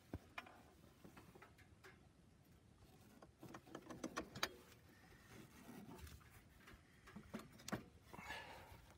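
Faint clicks and metal-on-metal knocks of a clutch collapse tool being hooked onto and worked against a side-by-side's primary clutch. There is a cluster of clicks about four seconds in and a couple more near the end.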